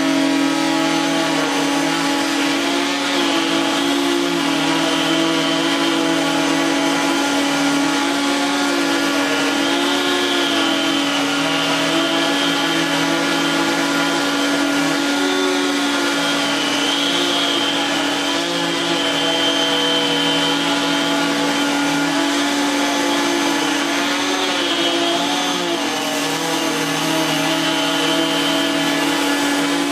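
Prolux CTX water-filtration canister vacuum running steadily, its electric powerhead brushing a rug, a steady motor hum with a slight waver in pitch every couple of seconds.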